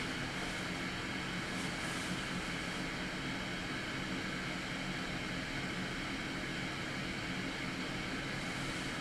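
ResMed AirSense 10 Auto CPAP running steadily with its humidifier and hose attached and no mask: an even rush of air with a faint low hum.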